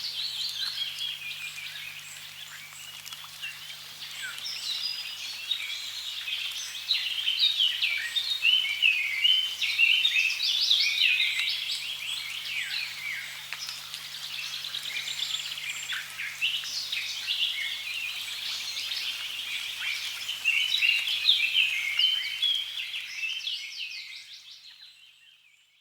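Dense chorus of many birds chirping and trilling, overlapping rapid calls over a faint steady background noise and low hum. The whole sound fades out over the last few seconds.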